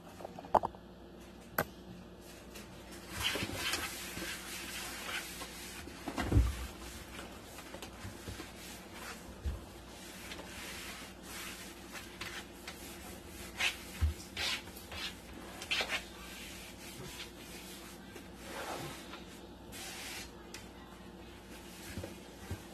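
Paper towel rubbing and wiping over the wooden inside of a kitchen cabinet, in uneven swishes, with scattered knocks and bumps against the cabinet; the loudest knock comes about six seconds in.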